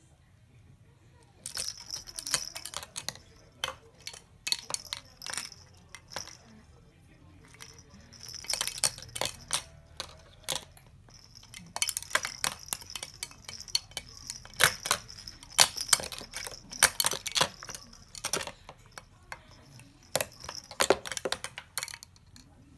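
Toys hanging from a baby play gym rattling and jingling as a baby bats at them fast. The sound comes in quick irregular flurries of clicks with a bright ringing edge, starting about a second and a half in, with short pauses between bursts.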